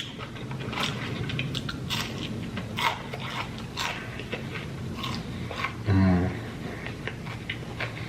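Close-miked chewing and biting of greasy fast food, with a string of wet smacking clicks. A short low hum from the eater's voice about six seconds in.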